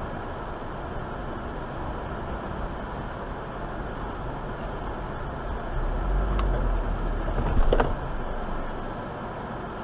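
Steady road and engine noise inside a moving car's cabin, picked up by a dash cam. A louder low rumble builds past the middle, topped by a brief sharp click or knock near the end.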